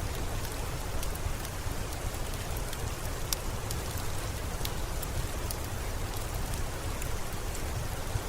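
Steady rain with a low rumble underneath and scattered sharp ticks and pops.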